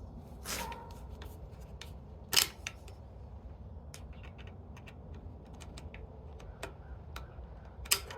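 Scattered clicks and taps of a tool working a steel hose clamp that holds a bicycle kickstand to the frame, with two sharper knocks, one about two and a half seconds in and one near the end.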